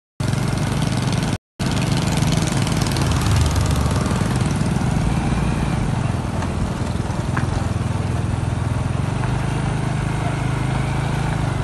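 Small motorcycle engine running steadily while riding, with wind on the microphone. The sound drops out twice for a moment near the start.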